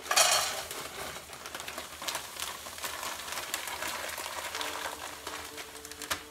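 Green and red peppers and onions go into a hot pan greased with cooking spray. They hit with a sudden loud sizzle at the start, which settles into steady crackling frying.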